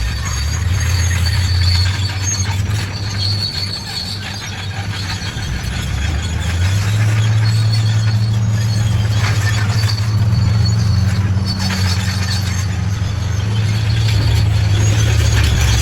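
Crawler bulldozer working: a steady low diesel engine drone that eases off, then grows louder about six seconds in, over a thin, high metallic squeal and scattered clanks.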